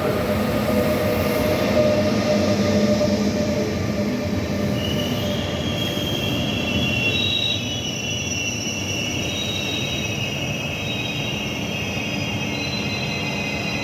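Train running along the platform with a steady rumble, joined about five seconds in by a high metallic squeal of several thin overlapping tones that lasts to the end.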